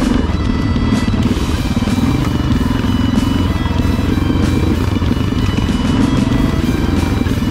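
Yamaha Ténéré adventure motorcycle's engine running steadily under way on a rough dirt trail, with music mixed over it.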